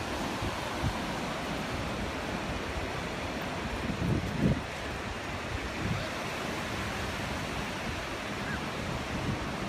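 Ocean surf breaking and washing up the beach in a steady rush, with a few low gusts of wind on the microphone, the strongest about four seconds in.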